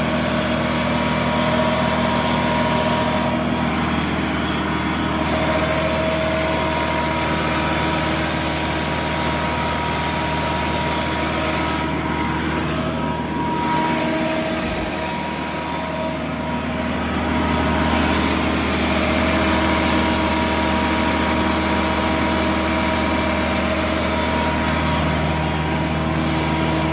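Generac diesel generator engine running steadily during a load test, with an even engine drone and hum. The sound dips slightly about halfway through, then picks up again.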